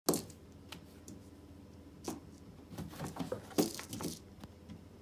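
A cat batting at a small ball toy on a wooden floor beside a cardboard scratcher: a sharp knock at the start, then scattered light taps, scrapes and rustles, busiest about two seconds in and again from about three to four seconds in.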